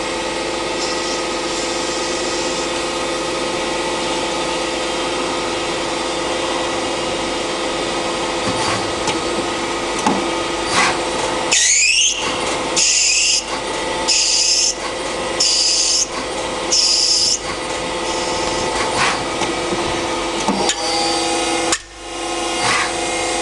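Mazak Quick Turn QT-6T CNC lathe running a machining cycle: a steady mechanical hum with cutting noise. About halfway through there is a rising whine, then four short high-pitched bursts about a second and a half apart.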